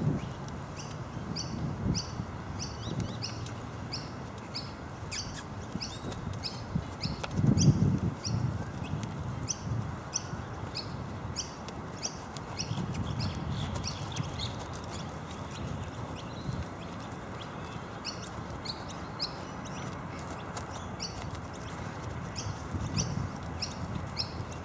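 A bird calling with short, high chirps repeated about twice a second, over a few low thumps, the loudest about a third of the way in.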